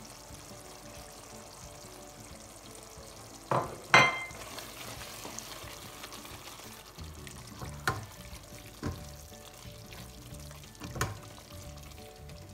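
Lamb curry cooking in a pot over a gas flame while a spatula stirs freshly added ground spices into it: a steady frying hiss with scraping strokes. Two sharp clanks about three and a half and four seconds in are the loudest sounds, and three lighter knocks come later in the stirring.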